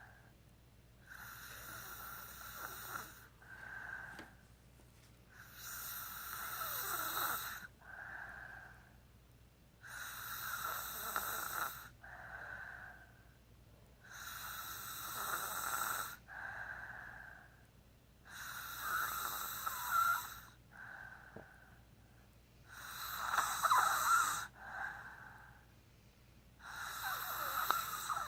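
Steady snoring in a slow, even rhythm: a snore of about two seconds comes roughly every four and a half seconds, and each is followed by a shorter, softer breath sound.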